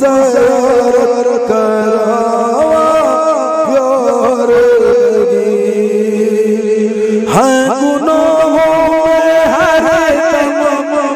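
Man singing a Bhojpuri naat into a microphone. He holds long, wavering notes and slides up into new phrases about a second in and again after about seven seconds, with no clear words.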